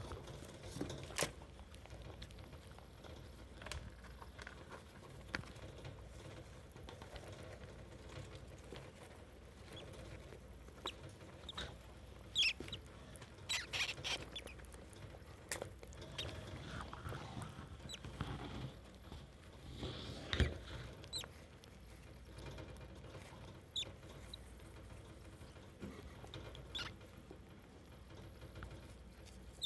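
A litter of young pet rats shuffling and grooming in shredded paper bedding. The rustling is steady, with scattered sharp clicks and a few brief high squeaks, the busiest stretch coming about halfway through.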